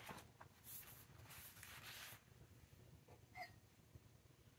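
Near silence with a faint rustle of paperback pages being handled and turned, then a single tiny click near the end.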